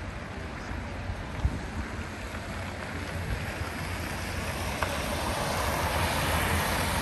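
Outdoor ambience: a steady low rumble and hiss like wind on the microphone. A single sharp thump comes about a second and a half in, and the noise swells in the second half.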